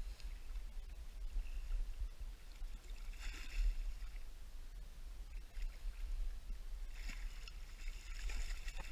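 Hooked pike splashing at the surface as it is drawn in to the bank on rod and line, once about three seconds in and again for a longer spell near the end, over a steady low rumble.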